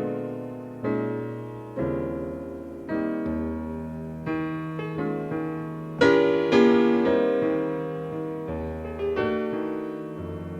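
Piano in a live jazz piano trio, striking chords about once a second and letting each ring and fade, with low notes held underneath. It is a cassette tape recording of an FM radio broadcast, with the top end dull.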